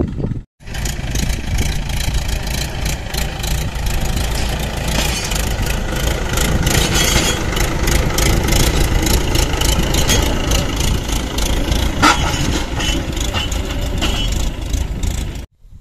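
Mahindra tractor's diesel engine running steadily under load as it pulls a cultivator through stony soil, with one sharp knock about twelve seconds in.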